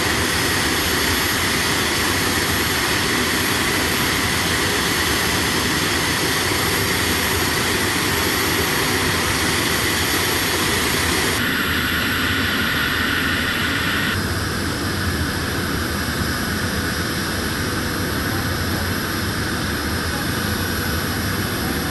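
Jet engines of a parked airliner running on the apron: a steady roar with a high whine. The sound changes abruptly twice, about halfway through and a few seconds later.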